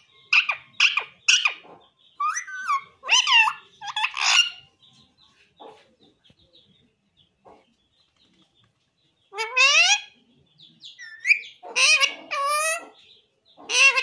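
A pet ring-necked parakeet calling in short, squawky bursts whose pitch bends up and down: a quick run of calls in the first few seconds, a pause of several seconds, then more calls near the end.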